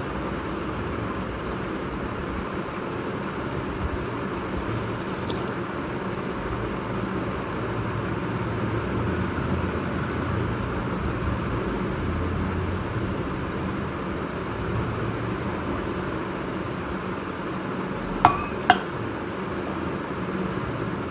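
Two sharp metallic clinks about half a second apart near the end, as a stainless steel tumbler is set down among the dishes. A steady background rushing hum runs throughout.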